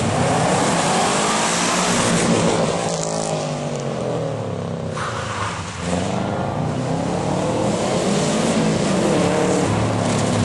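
Rally car engines driven hard on a wet street stage. One car revs and shifts as it slides past, and its note falls away. About six seconds in, the next car's engine rises as it approaches, over a hiss of spray from the wet road.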